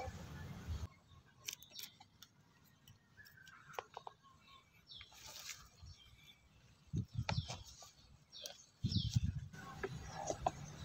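Faint, scattered snips and rustles of scissors cutting yellowing leaves off a young luffa plant, with a few short bird chirps.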